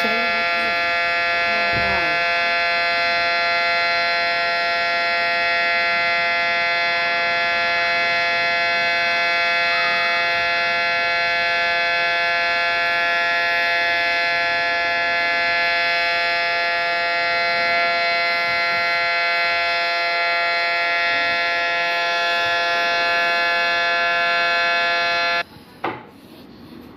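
Outdoor warning siren sounding a loud, steady tone that holds one pitch throughout, then cuts off suddenly near the end.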